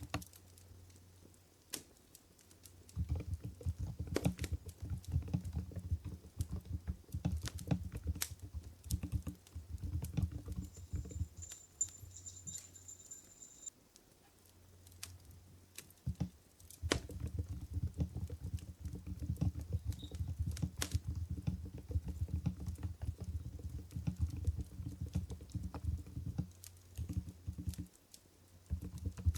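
Fast typing on an Mstone Groove GV10 keyboard with silent Coral switches: soft, low keystrokes in two long runs, pausing about 11 seconds in and resuming a few seconds later, then a few scattered keystrokes near the end. Sparse sharp crackles of a campfire run beneath, clearest in the pauses.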